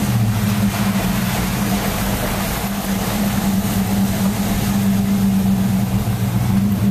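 Dodge Durango's engine running steadily at low road speed, a constant drone, with tyres hissing on the rain-wet pavement, heard from inside the cabin.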